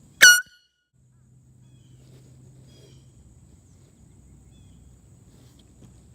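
A single short, very loud air horn blast, lasting a fraction of a second and cut off abruptly, after which the audio drops out for about a second before faint outdoor background returns.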